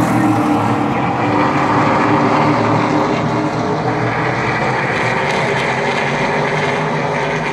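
A field of SRX race cars running laps on the oval, their engines droning steadily as they circle the track.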